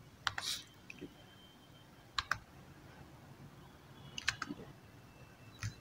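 Computer mouse and keyboard clicking: a few scattered single and paired clicks with pauses between them.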